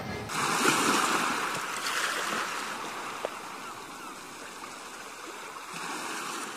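Outro sound effect: a rushing, water-like noise that starts suddenly, fades slowly, swells a little near the end, then stops.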